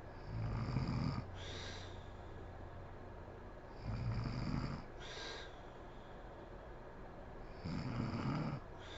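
A sleeping woman snoring: three loud snores about four seconds apart, each followed by a short hissing breath.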